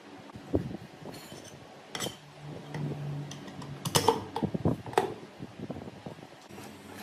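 Metal parts clinking and knocking several times, some strikes ringing briefly, with a short steady hum in the middle.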